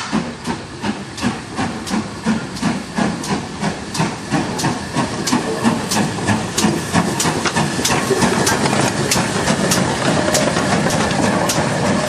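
Great Western Manor-class 4-6-0 steam locomotive Foxcote Manor pulling away from a station, its exhaust chuffing in an even beat of about two and a half a second over a steady hiss of steam.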